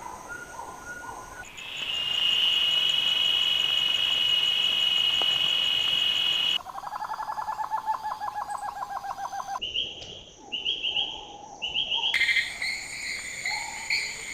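Rainforest animal sounds that switch abruptly every few seconds. A few short bird notes give way to a loud steady insect buzz lasting about five seconds. Then comes a fast pulsing trill of about eight notes a second, a run of repeated short chirps, and more bird calls near the end.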